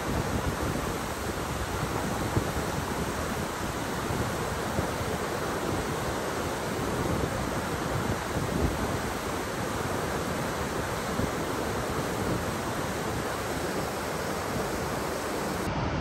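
Nevada Fall and the Merced River rapids below it running at heavy spring snowmelt flow: a steady roar of falling and churning whitewater, with gusts of wind on the microphone adding a low rumble.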